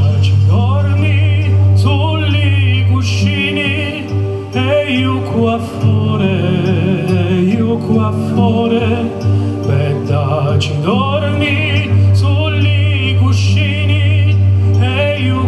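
Male singer singing with strong vibrato into a microphone, over an amplified backing accompaniment with a steady bass line.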